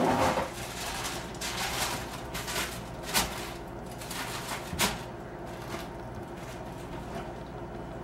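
Light kitchen clatter: a few sharp clicks and scrapes of utensils on dishes and baked potato shells during the first five or six seconds, then only a steady hum.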